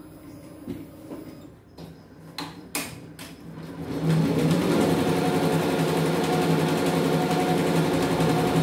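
CNY multi-needle computerized embroidery machine: a few sharp clicks about two to three seconds in, then about four seconds in it starts stitching, a loud, fast, steady mechanical running with a strong hum.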